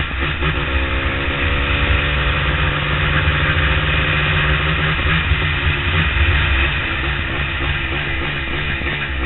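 Motorcycle engine running at a steady cruising speed while riding, with heavy wind rush on the microphone.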